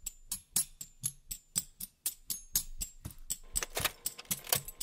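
A quick, uneven run of sharp ticks, about six a second, some with a faint high ring: a ticking sound effect.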